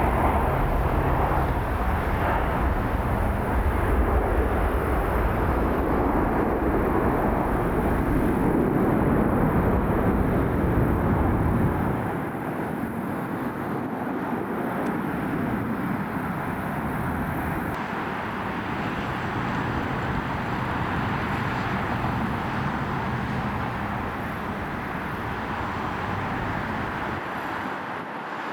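Jet engines of a departing Airbus A330-300 airliner rumbling steadily, the deep low end dropping away about twelve seconds in. Over the second half, an arriving Boeing 737 MAX 8's engines give a quieter, steady jet rush.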